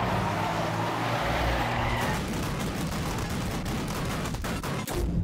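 Cartoon sound effects of a large truck driving through a dust storm: a rushing, noisy drone with a low engine tone, turning into a dense rattle of rapid clicks from about two seconds in.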